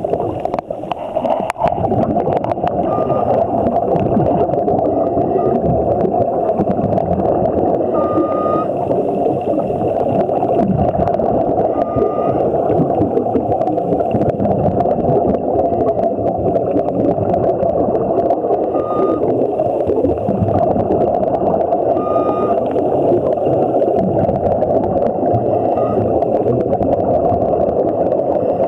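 Steady, muffled rush of water noise recorded underwater by a waterproof compact camera on a shallow scuba dive, with faint short tones every few seconds.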